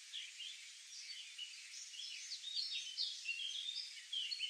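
Chorus of several birds singing and chirping at once, many short overlapping twitters and warbles over a steady hiss of outdoor ambience.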